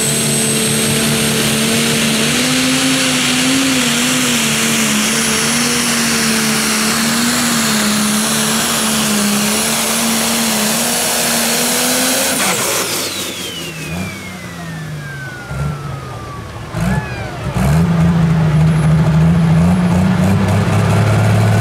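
Pro Stock pulling tractor's turbocharged diesel engine running flat out under load down the track, with a high turbo whistle slowly rising over it. About twelve seconds in the engine note drops off sharply as the pull ends and the turbo whistle falls away over several seconds; then a lower engine note with short blips and a steady run at lower revs.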